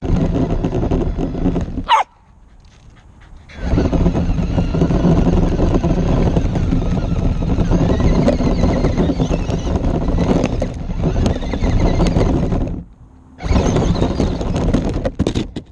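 Traxxas LaTrax SST electric RC truck driving over gravel, heard from its onboard camera: a loud, dense rattling of tyres on stones and a shaking chassis. It drops away about two seconds in, after a quick falling whine, picks up again a second and a half later, and pauses briefly once more near the end.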